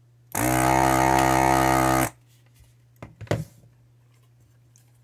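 Hakko FR-301 desoldering gun's vacuum pump running in one steady buzz for under two seconds, starting and stopping abruptly as it sucks molten solder out of a circuit-board joint. A few short knocks follow.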